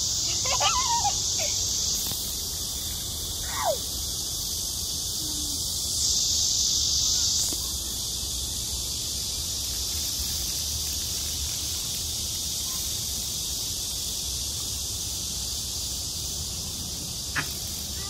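Cicadas droning in chorus: a steady high-pitched buzz that swells louder about two seconds in and again for about a second and a half around six seconds in.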